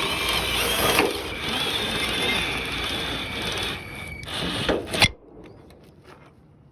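Harbor Freight Warrior cordless drill running, with a faint whine over a dense noise; it stops suddenly about five seconds in.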